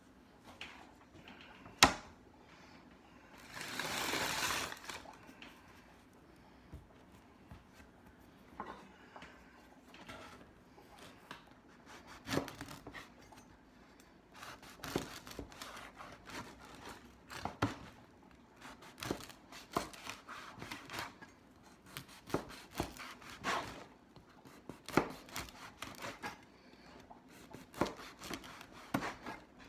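A sharp knock about two seconds in, then a brief crinkling rustle of packaging. From about twelve seconds on comes a run of short, irregular scraping strokes: a bread knife sawing through a seeded roll.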